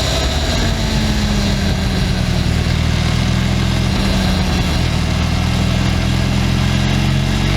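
Benelli 502C's stock parallel-twin engine running steadily through its stock exhaust, its pitch easing slightly downward.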